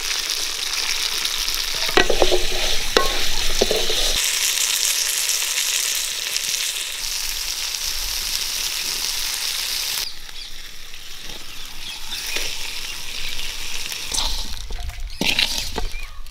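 Shallots, garlic, dried red chillies, tomatoes and whole spices sizzling as they roast in an aluminium pan and are stirred, with a few knocks early on. About ten seconds in the sizzle drops away, and near the end a wooden spatula scrapes and knocks as the roasted mix is scraped out of the pan.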